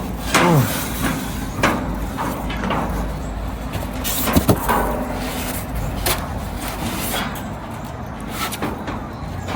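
Building-site background noise: a steady low rumble like a nearby vehicle or machine, with scattered knocks and clatter, the loudest about four and a half seconds in, and a short downward-sliding squeal near the start.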